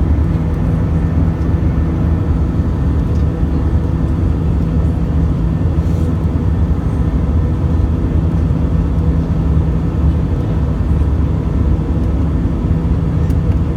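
Steady drone of an Airbus A320's IAE V2500 turbofan engines at climb power, heard inside the cabin: a low rumble with a steady hum over it.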